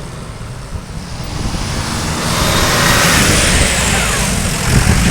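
A motor vehicle passing close by, growing louder from about a second in, with a high whine that drops in pitch as it goes past.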